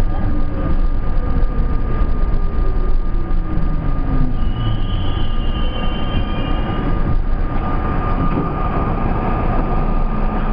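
R32 subway train running through an underground station and tunnel, heard from inside the front car: a loud, steady rumble of wheels and running gear with a steady whine underneath. A brief high-pitched squeal comes about halfway through.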